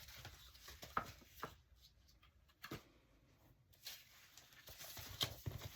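Faint handling of paper and cardstock pieces: soft rustling with a few light taps and clicks.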